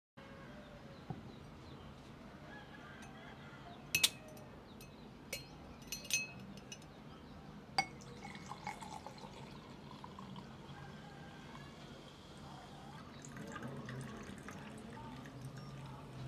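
A swing-top glass bottle of homemade ginger beer being opened with a few sharp clicks, the loudest about four seconds in, then the fizzy ginger beer poured into a drinking glass, splashing and foaming.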